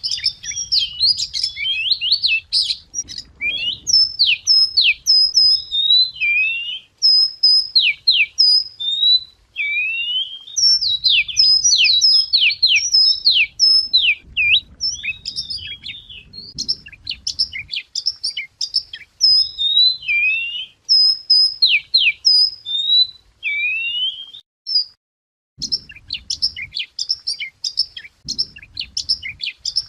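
Wagtail singing, a fast, varied run of high chirps and whistled slurs with only a brief pause near the end. It is a lure song for calling in wild birds.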